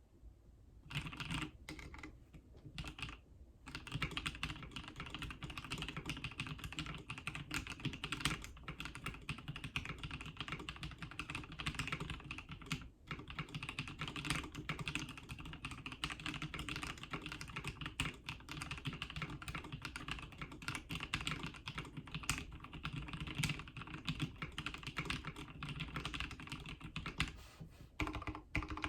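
Custom QXP mechanical keyboard with lubed NovelKeys Cream linear switches on a POM half plate being typed on fast and continuously: a dense run of key clacks starting about a second in, with a couple of short breaks around three seconds.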